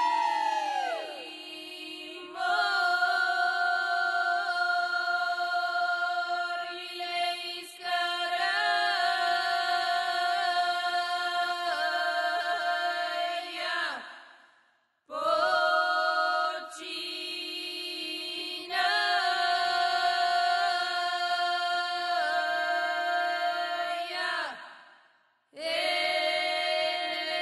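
Several women's voices singing a Bulgarian folk song unaccompanied, in long held notes with small ornaments over a steady lower drone note. The singing breaks off briefly twice, about halfway through and near the end.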